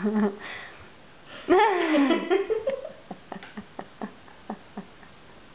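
A woman laughing: a drawn-out gliding whoop of laughter about a second and a half in, then a string of short giggles that fade away.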